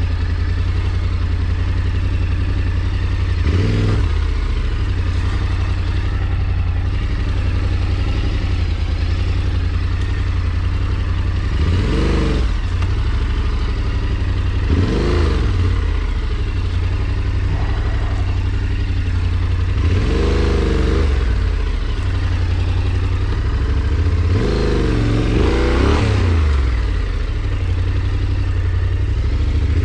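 A small vehicle engine running steadily under load, revving up and easing off about five times.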